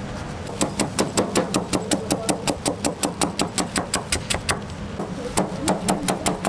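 A cleaver chops quickly through a slab of oranda, a puffed-grain candy, striking a plastic cutting board with sharp, even knocks at about five a second. The chopping breaks off briefly about two-thirds of the way in, then picks up again.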